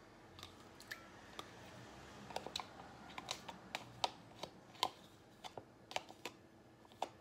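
Light, irregular clicks and taps from a small plastic spice container being tapped and shaken upside down over a glass mixing bowl, most of them in the second half.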